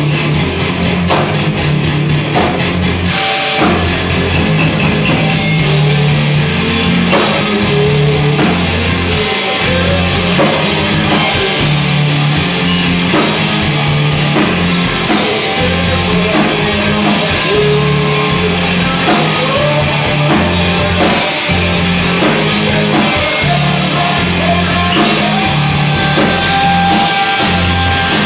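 Live rock band playing loud: electric guitars, bass guitar and drum kit, with steady drum hits and heavy bass notes.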